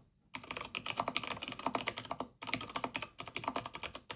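Typing on a writerdeck's low-profile mechanical keyboard: a quick, steady run of key clicks, with a short pause about two seconds in.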